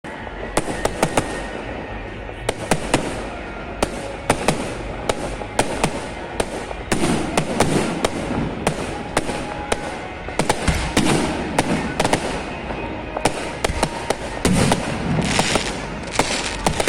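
Fireworks display: a rapid string of sharp bangs and crackles over a steady rumble, with several deeper booms in the middle and near the end.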